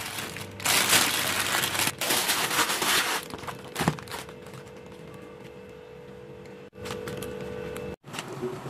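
Thin plastic bag crinkling loudly for about three seconds as it is handled, then a single sharp click and a quieter stretch with a faint steady hum.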